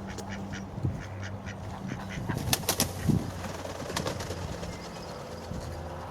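Ducks quacking, mixed with short sharp clicks and rustles, the loudest a pair of clicks about two and a half seconds in, over a steady low hum.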